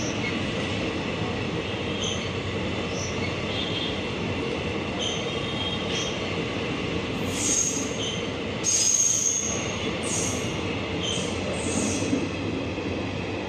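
A passenger train's coaches rolling past with a steady rumble, their wheels giving short high squeals on the rails about once a second, louder in the second half, with one longer squeal near the middle.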